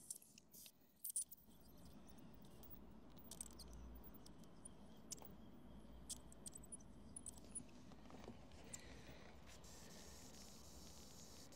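Near silence: faint, scattered small clicks and scrapes over a low steady hum, with a few sharper clicks in the first second and a half.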